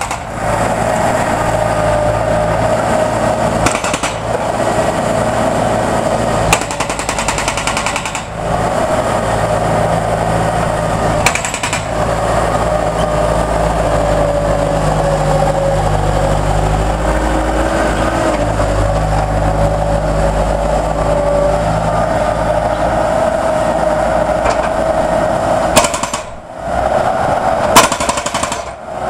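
Concrete breaker hammering steadily as it breaks up old concrete, with a low engine drone underneath. It stops for a moment a few times, twice near the end.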